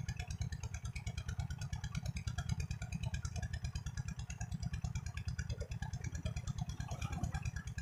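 Small engine running steadily with an even, rapid chugging beat, about a dozen beats a second. Faint water splashing comes in during the last couple of seconds.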